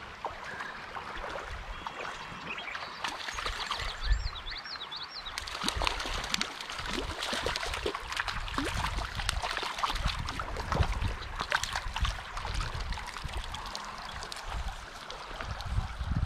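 Shallow creek water running over a riffle, with irregular splashing from about five seconds in as a hooked brown trout is played and drawn into a landing net.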